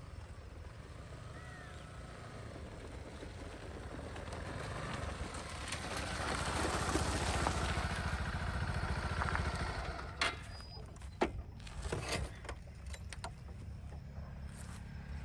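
A motor vehicle passing outdoors, its noise growing louder toward the middle and then fading, over a steady low hum. A few sharp clicks or knocks follow near the end.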